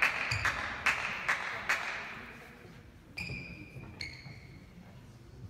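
A few spectators clapping, a handful of claps echoing in a large sports hall and dying away about two seconds in. Then two short, high squeaks of badminton shoes on the court floor.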